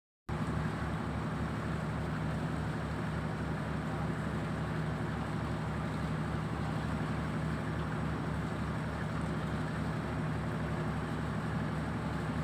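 A boat's engine running steadily, a low even hum with a pulsing rumble beneath it. The sound cuts in abruptly just after the start.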